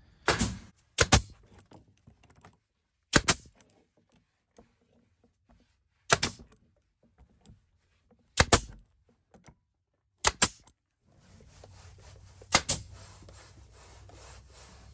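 Brad nailer firing nails through ash batten strips into board siding: about seven sharp cracks, several of them quick doubles, one every one to three seconds. A steady low hiss comes in about eleven seconds in.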